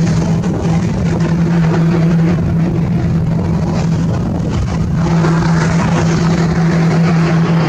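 An engine running steadily, giving a constant low hum over a hiss of noise.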